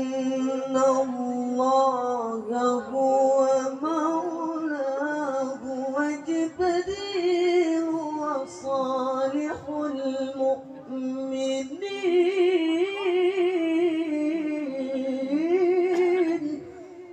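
A male qari's melodic Quran recitation sung into a microphone: long held, ornamented notes with a wavering pitch that climbs about four seconds in and again about twelve seconds in. The voice stops just before the end.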